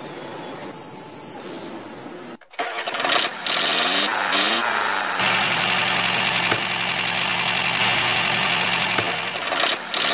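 Small motor of a home-built miniature tractor running steadily as it drives pulling a loaded trolley. It comes in suddenly and louder about two and a half seconds in, after a quieter stretch.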